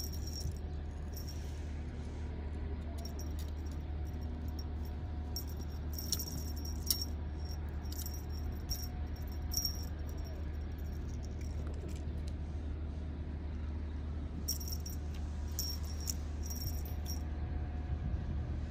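Small metal jingle on a feather-and-string cat toy, ringing in short irregular bursts as a kitten bats and tugs at it, over a steady low hum.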